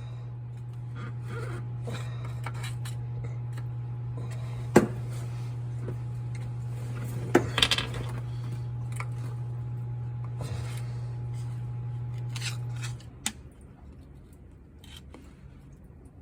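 Metal hand tools clinking, tapping and scraping at the truck's tail shaft housing while the old tail shaft seal is worked out and the new one fitted, with the loudest cluster of metal strikes about halfway through. A steady low hum runs beneath and stops about three seconds before the end.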